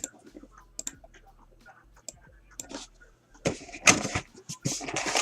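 Light clicks and taps from handling a sealed box of trading cards. About three and a half seconds in, the box's plastic wrapping starts crinkling and rustling loudly in quick bursts as it is torn open.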